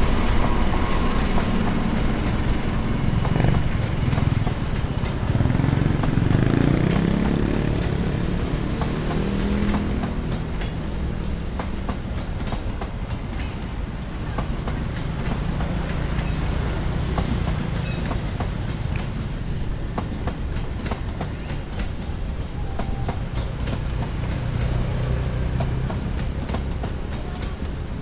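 Diesel locomotive of a passenger train passing close by, its engine drone strongest in the first seven seconds or so, followed by the coaches rolling past with a steady wheel-on-rail rumble and repeated clicks over the rail joints.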